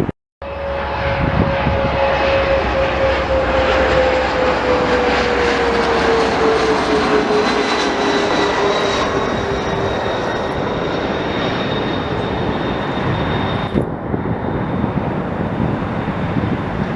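Jet airliner's engines running loud and steady as it passes, with a whine that slowly falls in pitch over the first ten seconds or so.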